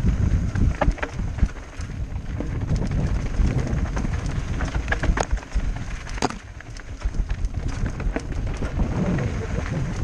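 Mountain bike rolling fast down a dirt singletrack, heard through the bike-mounted camera: wind buffeting the microphone and tyre rumble over loose dirt, with frequent sharp clicks and rattles from the bike and stones. The sound eases for a moment about six seconds in.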